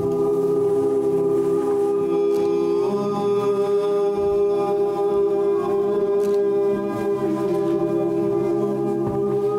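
A group of voices singing long held notes together, a chant-like choral drone that moves to a new chord about three seconds in.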